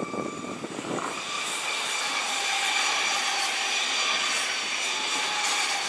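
Siemens Desiro HC electric multiple unit in RRX livery passing close by: rolling wheel-and-rail noise that swells from about a second in, with a steady whine in several tones.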